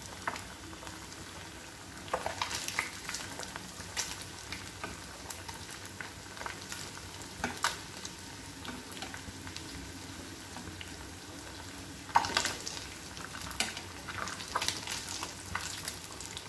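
Batter-coated boiled egg pieces deep-frying in hot oil in a non-stick pan, a steady sizzle. A metal slotted spatula clicks and scrapes against the pan now and then as the pieces are turned, loudest about twelve seconds in.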